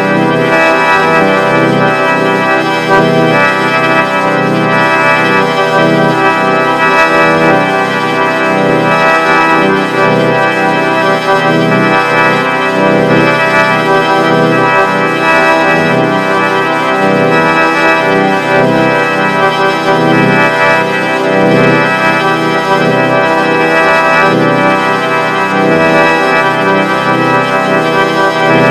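Vocoder sound effect in G major: a loud chord of many steady tones, held without a break and sounding like an organ, with a slight flutter in the lower notes.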